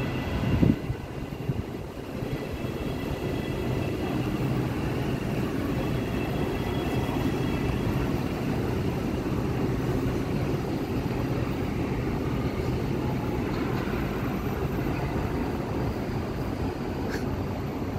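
Steady low rumble, like a vehicle running, with a short knock just under a second in.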